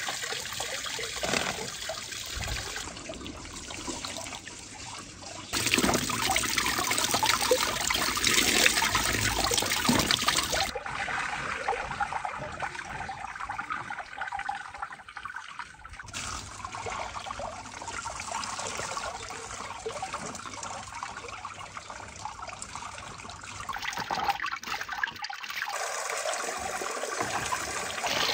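Water pouring steadily from a stone spout into a stone basin, with splashing and dripping as tomatoes are washed in it. The level jumps up and down abruptly a few times.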